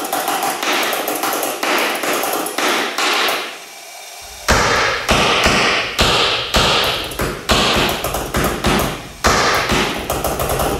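Homemade pulse detonation engine firing as a fast, uneven string of sharp bangs, driving a turbocharger. The bangs thin out briefly near the four-second mark, then come back louder and deeper, the strongest about twice a second.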